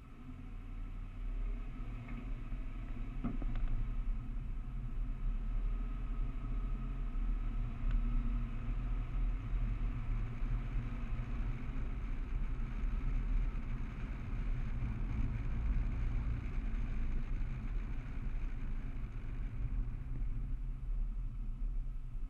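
Police car engine and road and wind rumble heard from a hood-mounted camera as the car pulls away and picks up speed, rising over the first couple of seconds and then running steadily.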